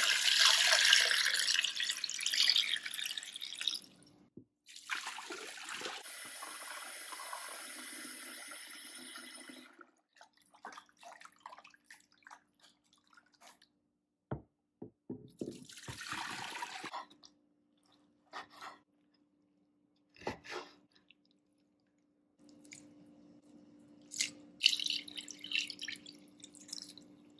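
Cold water poured from a jug into a glass bowl of raw beef ribs, then water running steadily for several seconds. Next come scattered splashes and clinks as hands rinse the meat in the water, and a second pour near the end.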